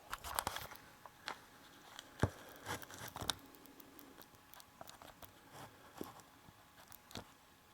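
Scattered light clicks, knocks and rustles of handling and movement, the sharpest knock about two seconds in. No gunshot yet.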